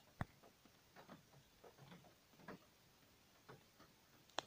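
Near silence with a few faint, scattered ticks, the sharpest just after the start: a thin paper till receipt being handled in the fingers.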